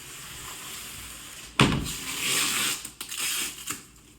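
Plastic wrapping and packing tape being handled: a sudden loud scraping rustle about a second and a half in, then several shorter bursts of rustling.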